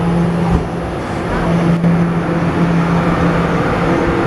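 Taiwan Railway EMU700 electric multiple unit drawing up beside the platform and coming to a stop, its electrical equipment giving a steady low hum over the rumble of the train.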